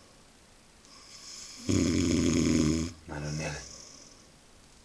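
A sleeping man snoring loudly like a pig: after a quiet breath, one long, rattling snore lasting about a second comes in near the middle.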